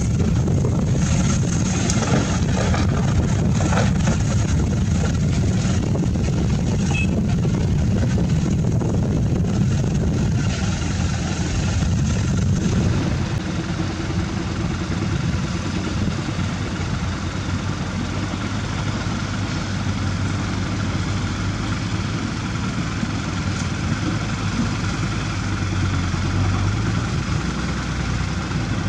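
Diesel engine of a Cat 320D excavator working close by while loading a dump truck, with a few knocks. About halfway through it gives way to a steadier, lower engine hum from dump trucks climbing a haul road.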